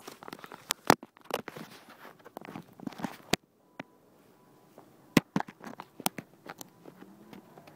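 A phone being handled and set down on a stone surface: scattered knocks, taps and scrapes, with a few sharp clicks.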